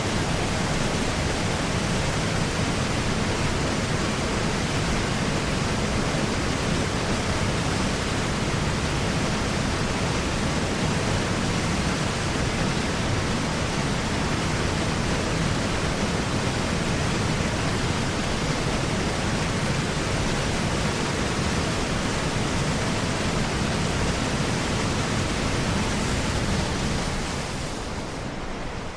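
Water pouring over a river dam: a steady, dense rush of falling water, fading out near the end.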